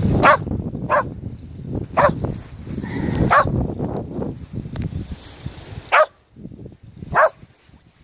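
Shetland sheepdog barking six times at uneven intervals, short sharp barks. Wind rumbles on the microphone through the first half.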